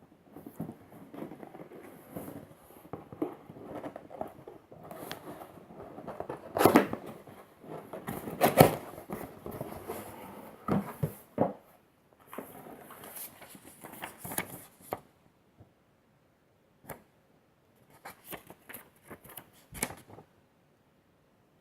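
Hands handling and unwrapping packaging: irregular rustling with scattered knocks and clicks, the loudest two about a third of the way in, then only sparse taps near the end.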